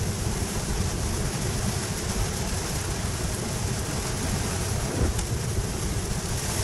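Steady noise of heavy rain on the car and tyres running on a soaked road, heard from inside a Tesla Model 3's cabin: a low rumble under an even hiss.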